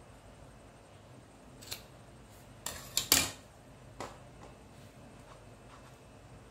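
Scissors snipping wool yarn: a few short sharp snips, the loudest a little after three seconds in.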